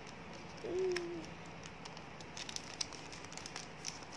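Small clicks and crinkles of photocards and clear plastic sleeves being handled, with one short low hum about a second in.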